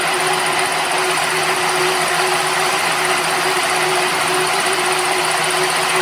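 Electric mini round silage baler-wrapper running steadily: a constant mechanical noise with a few steady whining tones.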